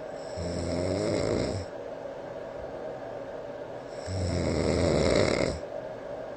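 A man snoring in his sleep, from a sleep-tracking app's overnight recording of his untreated snoring. There are two long snores about three and a half seconds apart, over the steady hiss of a white-noise sleep machine.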